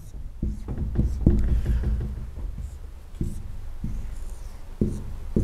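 Marker pen writing on a whiteboard: a string of short strokes and taps with faint squeaks, over a steady low hum.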